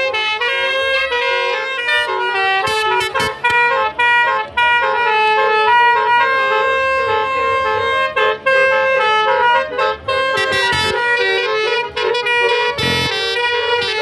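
Basuri telolet musical car horn playing a tune of quick stepping notes.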